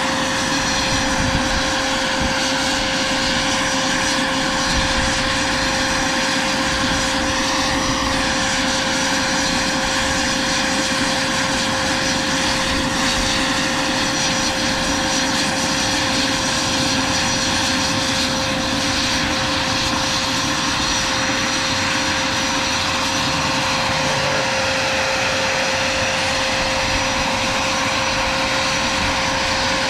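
Vario MD600N radio-controlled scale helicopter with a small gas turbine running at a steady speed: a continuous turbine whine carrying one fixed tone, the level holding even throughout.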